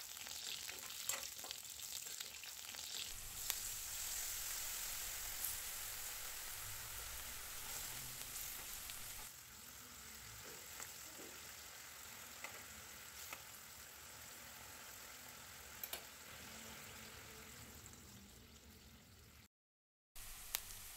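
Drumstick (moringa) pieces sizzling in oil in a stainless steel kadai, with sharp clicks and scrapes of a steel spoon against the pan as they are stirred. About nine seconds in, the sizzle drops to a softer, steady simmer once water is in the pan. The sound cuts out for a moment near the end.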